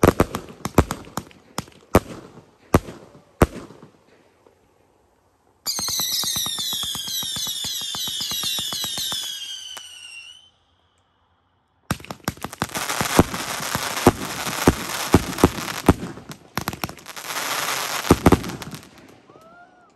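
Consumer firework cakes firing. First come a few separate sharp reports. A few seconds in, a volley of many whistles starts, each falling in pitch, for about five seconds. After a short gap comes a dense run of rapid crackling and bangs that dies away near the end.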